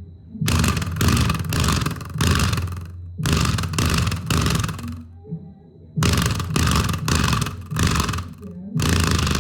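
Bass-heavy electronic intro music with noisy, hissing hits over a steady deep bass line. It drops out briefly about five seconds in.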